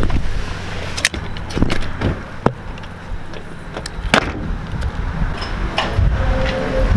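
A car's low rumble with a few sharp clicks and knocks of things being handled.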